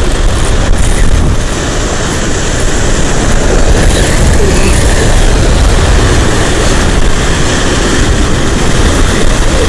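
Wind buffeting the microphone, a loud, steady rumble with a hiss above it.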